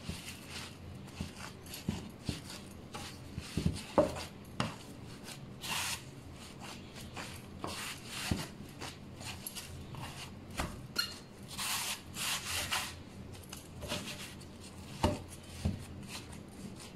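Hands working bread dough: irregular rubbing and scraping with scattered light knocks against the bowl or board.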